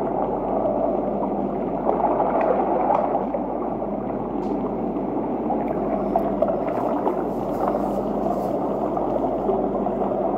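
Steady underwater-style water ambience: a low, murky rush with faint gurgling and a steady low hum.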